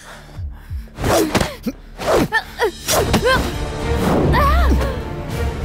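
Dramatic soundtrack with a few sudden hits and whooshes, about one a second in the first three seconds, then a low rumble; fight-style sound effects laid over the music.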